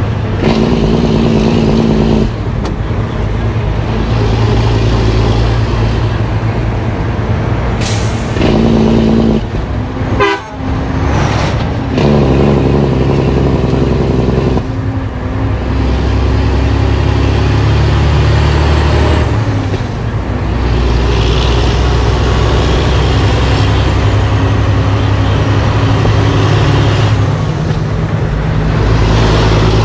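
Heavy truck's diesel engine running under load, heard from inside the cab, its pitch changing in steps several times through the gears. Near the middle there is a brief break with a few short, sharp sounds.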